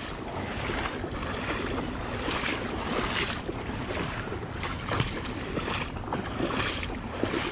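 Rushing creek water: a steady wash of noise with uneven swells.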